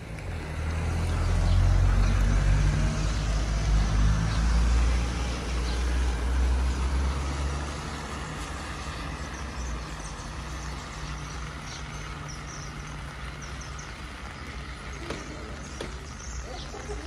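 Diesel-electric freight locomotives idling with a steady low engine hum, louder for the first seven seconds or so and then settling to a quieter even drone about eight seconds in, with a hiss of rain over it.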